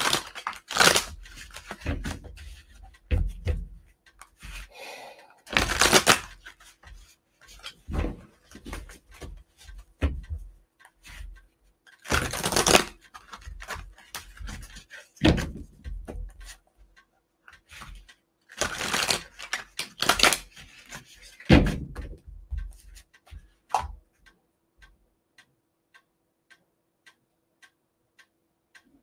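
A tarot deck being shuffled by hand in repeated bursts of riffling and card noise, with soft thumps as the deck is handled. From about 24 seconds in, only a faint, steady ticking is left.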